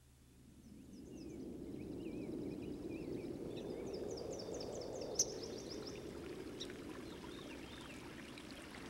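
Outdoor nature ambience fading in: a steady rushing like running stream water, with thin high chirping calls and quick trills above it. There is a single sharp click about five seconds in.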